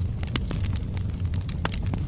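Wood fire burning in a fireplace: a steady low rumble of the flames under irregular crackles and sharp pops of the burning logs, with a louder pop at about one and a half seconds in.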